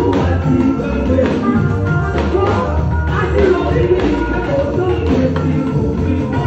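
Amplified live gospel singing: a woman's lead voice through a microphone with backing singers, over an instrumental backing with a steady bass line and percussion.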